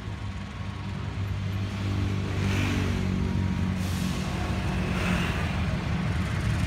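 Diesel-electric locomotive heading the Kaligung passenger train approaching, its engine running with a deep hum that rises a little in pitch and grows louder as it nears. Two brief hisses break in, about two and a half and five seconds in.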